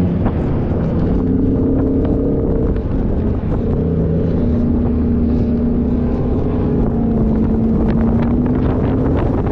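Off-road 4x4 vehicle's engine running while driving, its pitch dropping briefly at the start and then holding fairly steady, with wind noise on the microphone.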